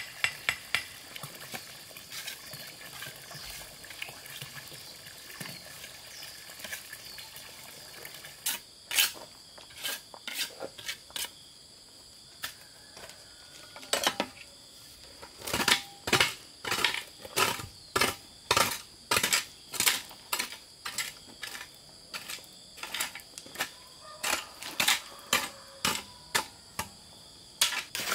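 Metal hand tools working gravel, soil and mortar among concrete blocks. Light scrapes and clicks at first, then from about a third of the way in a steady run of sharp metallic clinks and scrapes, roughly two a second, as a hoe chops into gravelly soil and a trowel scrapes wet mortar.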